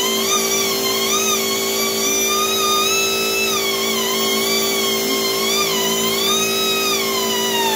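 Hand-held rotary tool whining as it works the cylinder fins of a Harley-Davidson Evolution engine, its pitch sagging and recovering again and again as the bit is pressed into the fins, over a steady lower hum.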